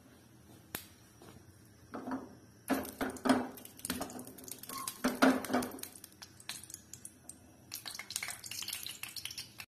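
A metal spoon scraping and knocking against a stainless steel frying pan as lumps of solid ghee are spooned in: a run of clatters and scrapes, loudest in the middle, with lighter clicks and scrapes near the end.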